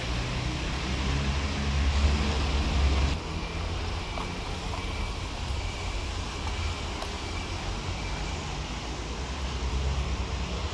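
Street traffic: a vehicle's low engine rumble builds over the first three seconds and cuts off abruptly, leaving steady traffic background.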